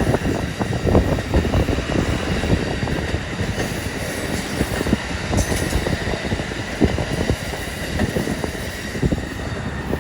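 Train rolling past close by, its wheels knocking in a rapid, irregular clatter over the rail joints, with faint steady high-pitched tones above.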